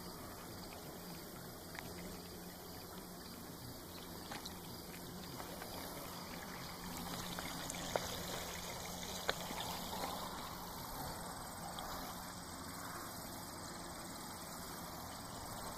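Steady trickle of water running in a backyard pond, over a faint low hum, with two sharp clicks about eight and nine seconds in.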